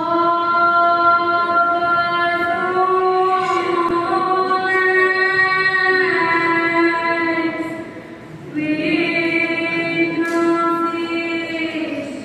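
A woman singing solo and unaccompanied into a microphone, in long held notes. She breaks off briefly about eight seconds in, then sings on.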